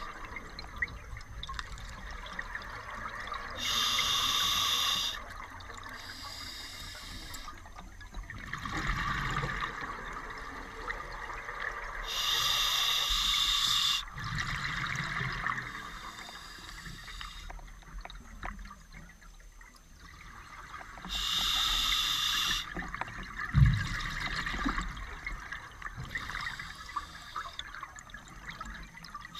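Scuba diver breathing through a regulator underwater: a loud hiss lasting about a second and a half, then a stretch of bubbling, repeating roughly every nine seconds. A single sharp knock comes about two-thirds of the way through.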